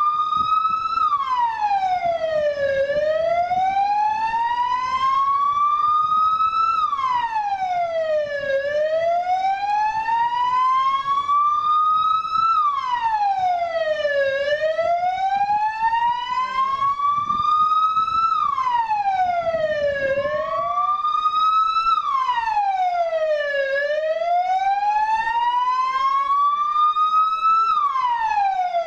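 Vehicle siren wailing in slow cycles: the pitch climbs over about four seconds, then falls back quickly, repeating about every six seconds.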